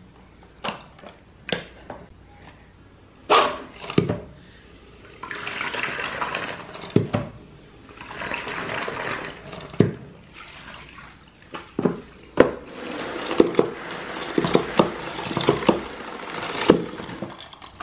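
A floor being washed with water and diluted disinfectant: liquid sloshing and swishing in stretches of a second or two, with scattered sharp knocks and clicks between them.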